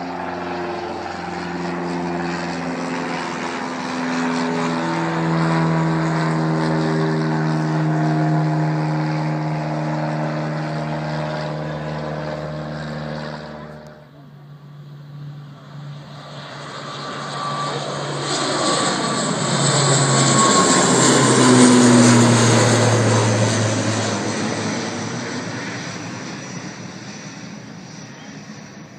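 Propeller aircraft engines running with a steady hum of several tones. About halfway through the sound cuts off abruptly, and a propeller aircraft passes close by, growing to its loudest a little over 20 seconds in, its pitch falling as it goes by, then fading away.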